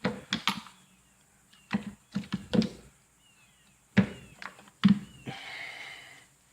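Metal hand tools, among them air ratchets, clunking and knocking as they are picked up and set down in a toolbox drawer, in short clusters of knocks, with a brief scraping slide about five seconds in.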